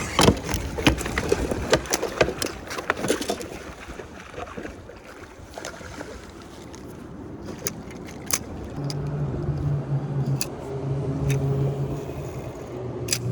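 Sharp knocks and clicks in the first few seconds, then from about nine seconds a steady low motor hum.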